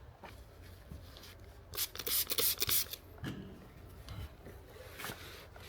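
Cloth wiping and rubbing along a rubber molding to degrease it with an oil-film remover. A harder, hissier stretch of rubbing comes about two seconds in and lasts about a second.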